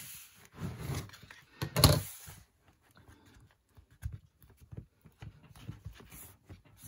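Paper rustling and handling as a book's pages are bent forward and pressed toward the spine, with one sharp knock about two seconds in, then a few faint taps.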